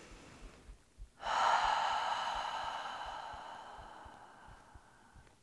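A woman's long, audible releasing breath out. It starts about a second in and slowly fades away over about four seconds.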